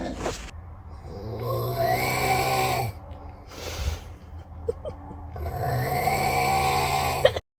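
A man snoring: two long, loud snores a few seconds apart, each lasting about a second and a half to two seconds, with quieter breathing between them.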